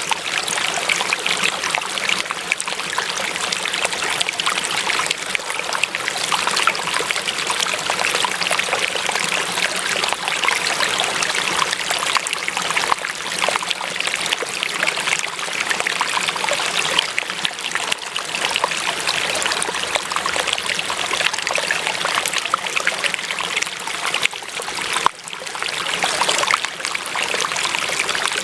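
Running water trickling and splashing steadily, like a small stream, with a brief dip in level about 25 seconds in.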